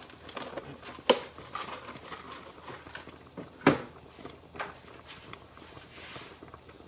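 Chicken stock simmering in a pot with a faint bubbling, and two sharp clacks of kitchen items being handled, one about a second in and a louder one near the middle.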